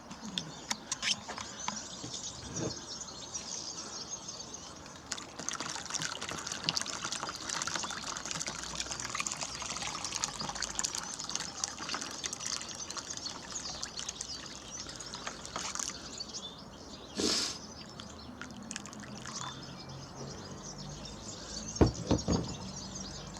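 Water or seed being poured into a garden bird-feeding station, making a dense, fine crackling patter for about ten seconds in the middle. A few louder knocks come near the end.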